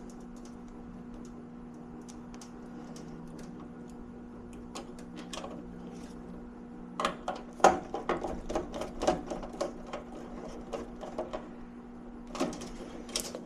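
Small clicks and taps of hands and tools working thermostat wires onto a furnace control board's terminals, in a quick cluster about halfway through and again near the end, over a steady low hum.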